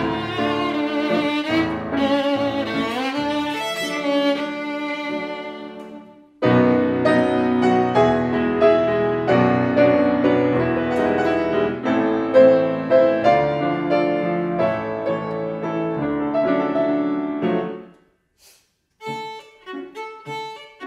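Solo violin with piano accompaniment playing a classical piece. The music thins out and breaks off for a moment about six seconds in, then resumes at full strength. It stops near the end with a short pause before sparser separate notes begin.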